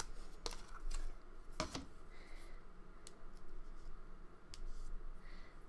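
A few light clicks and taps from a plastic slime tub as its lid is peeled off and set down on the table, the loudest about a second and a half in.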